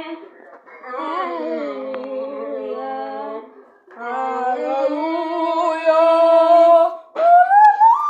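A person's wordless voice making long drawn-out hums, in three held phrases that bend slowly in pitch. Near the end it slides sharply up into a higher held note.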